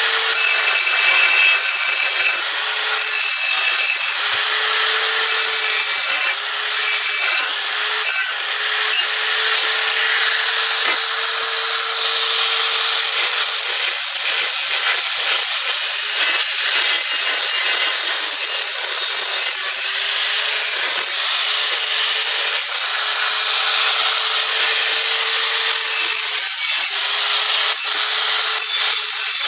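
Hand-held electric angle grinder running under load, its metal grinding disc grinding the corners of a metal tractor drawbar piece. A steady motor whine over the rasp of the disc, with a few brief drops in level about six to eight seconds in.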